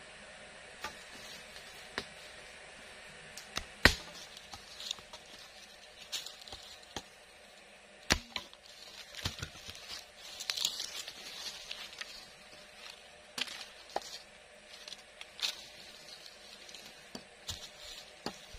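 Scattered knocks and taps of green bamboo poles and a hatchet being handled over dry leaf litter, with rustling of the leaves. The two loudest knocks come about four and eight seconds in.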